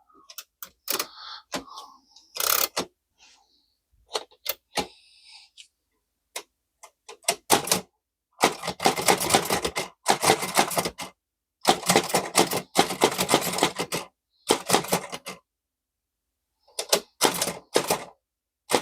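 Antique Chicago typewriter, a type-sleeve machine, being typed on. A few scattered keystrokes and a short rustle come first, then from about eight seconds in, fast runs of keystrokes in bursts of a second or two. It is a test line to check print quality now that the type sleeve slides freely again.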